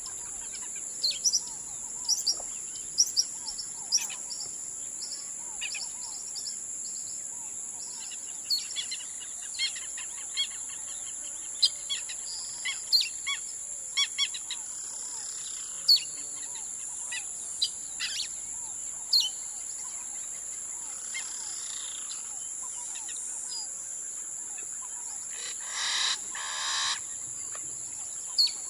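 Woodland birds chirping and calling in short notes, over a steady high-pitched whine. Near the end come two louder, harsher calls a moment apart.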